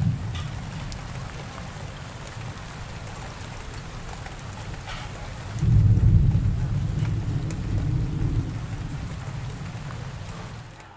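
Steady rain with scattered drips, under a deep rumble of thunder that swells about halfway through and rolls on. The whole thing fades out at the end.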